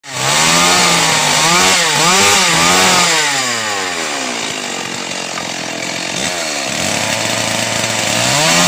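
STIHL two-stroke chainsaw revved up and down several times, then running steadier and lower-pitched as its bar is put to a wooden pole, with another rev near the end.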